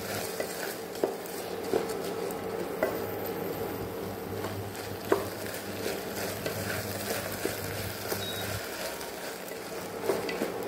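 A wooden spatula stirring basmati rice, green peas and cashews frying in ghee in an aluminium pressure cooker: a steady sizzle with scattered scrapes and knocks of the spatula against the pot.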